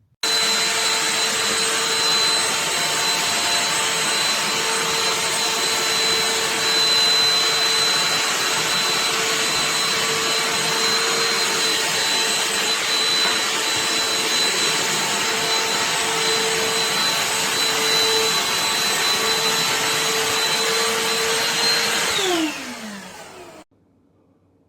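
Black+Decker 20-volt dustbuster handheld vacuum running loud and steady with a high motor whine. About 22 seconds in it is switched off and its pitch falls as the motor spins down.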